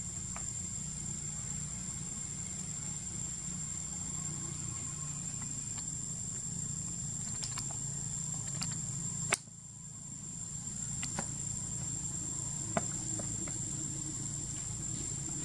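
Steady high-pitched insect drone over a low steady hum, with a few short sharp clicks; one loud click about nine seconds in, after which the sound drops briefly and builds back.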